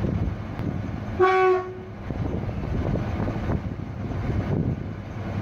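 Short horn blast from a diesel shunting locomotive: one steady note lasting about half a second, about a second in, over a continuous low rumble.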